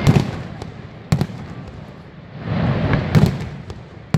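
Aerial fireworks shells bursting: a string of sharp bangs, the loudest right at the start and about three seconds in, over a rushing bed of noise that swells a little before the second big bang.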